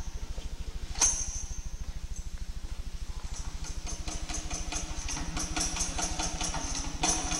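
Sparse percussion accompanying a dance. A struck metal percussion instrument rings once about a second in; from about halfway through, rhythmic jingling percussion starts and grows steadily. A steady low hum runs underneath.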